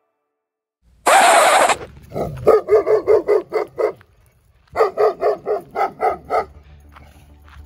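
A large white dog barking in two quick runs of about seven short barks each, with a brief pause between them. Just before the first run comes a loud, rough rush of noise lasting under a second.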